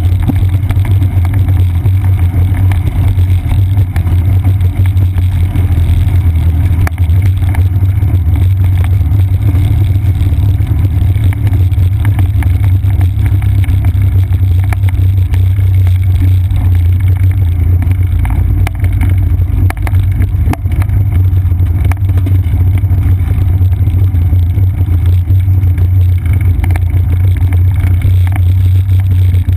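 Bicycle riding noise picked up by a seat-post-mounted GoPro Hero 2: a steady, loud low rumble of wind and frame vibration as the bike rolls along a wooden boardwalk, with faint rapid ticks over it.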